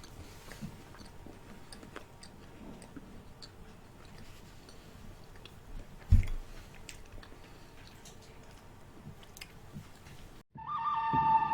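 Chewing a chocolate wafer bar, with faint scattered clicks and mouth noises and one low thump about six seconds in. Music starts near the end.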